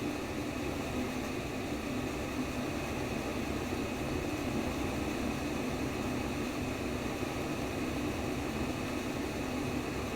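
Steady, unchanging white noise: an even hiss with a stronger low hum band, much like a fan or air conditioner running.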